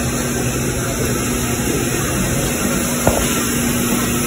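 Steady hum and rush of indoor background noise in a coffee shop, with a single sharp click about three seconds in.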